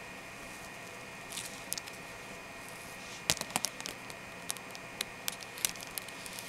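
Long natural fingernails clicking and tapping on a surface in irregular sharp taps, a few light ones at first and many from about three seconds in, over a steady hiss.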